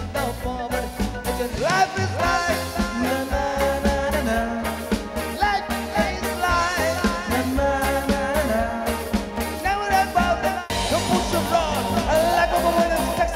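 Live band playing an upbeat song: a male lead vocal over electric guitar, bass guitar, keyboards and drums, with a steady beat. About ten and a half seconds in, the music cuts abruptly to another passage.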